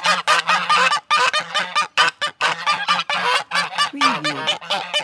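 A flock of geese honking: many short, overlapping calls in quick succession.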